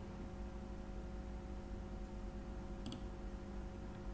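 Steady low electrical hum with a single computer mouse click about three seconds in, the click of the paint-bucket fill.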